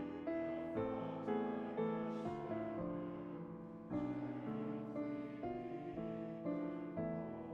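Piano playing a slow hymn-like passage, notes and chords struck about twice a second, each fading before the next.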